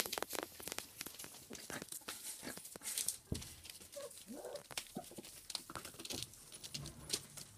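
Cockapoo puppies moving about: a patter of small scratchy clicks and rustles, with a brief squeak about four seconds in.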